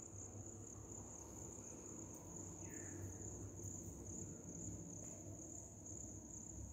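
Faint, steady high-pitched insect drone, over a low hum.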